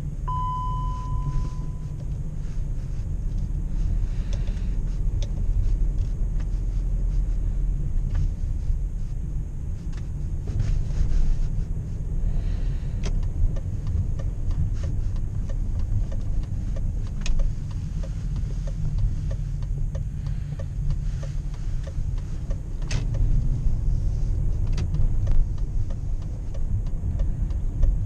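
BMW X5 4.4i's 4.4-litre V8 and road noise inside the cabin while driving, a steady low rumble. A short single beep sounds about half a second in.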